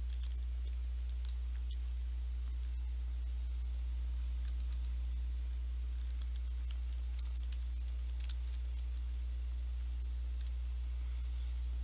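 Steady low hum with scattered faint clicks of a computer mouse and keyboard taps, a few in small clusters.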